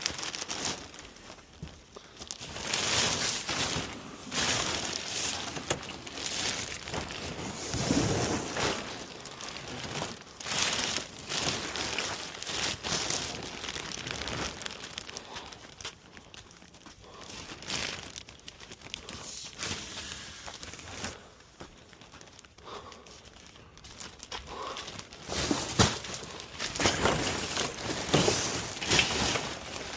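Irregular crinkling and rustling in repeated bursts as construction garbage is handled and loaded.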